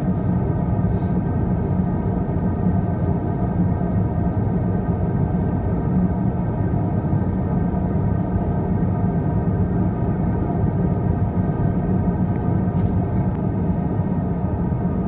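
Steady cabin drone of an Airbus A350-1000 in flight: the low rumble of its Rolls-Royce Trent XWB engines and rushing air past the fuselage, with a few faint steady tones over it.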